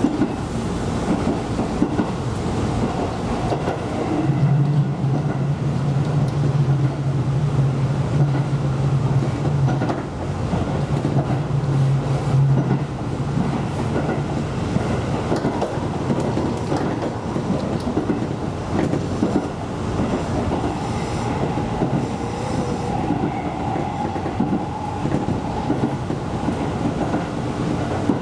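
Electric local train running along the line, heard from on board: a steady rumble of wheels on rail with scattered clicks over the track. A low steady hum sounds for several seconds early on, and a higher steady tone comes in past the middle.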